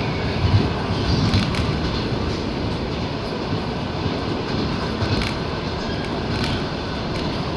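Train running on rails: a steady low rumble with a few irregular clacks of the wheels over rail joints.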